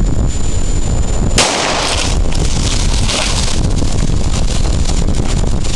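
A rifle shot, announced as an AK-47, cracks about a second and a half in and dies away quickly, followed by a second, softer noisy burst about three seconds in, over wind buffeting the microphone.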